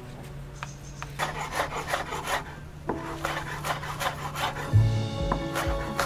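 Quick, rhythmic scraping and tapping strokes, about four to five a second: a fork mashing hard-boiled egg in a plastic tub, then a knife chopping nettle leaves on a wooden board. Soft background music plays underneath.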